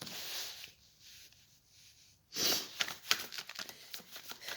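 A woman sniffling while crying: a breathy sniff at the start and a louder one about two seconds in, followed by light rapid clicking and rustling.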